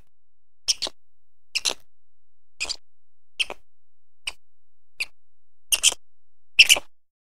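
Quokkas feeding on wood-chip mulch: a short, crisp crunch about once a second, eight in all.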